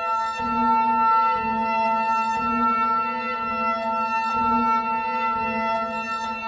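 Ambient electronic music from electric violin and electronics: a held, steady chord of layered tones, with a lower note pulsing on and off about once a second.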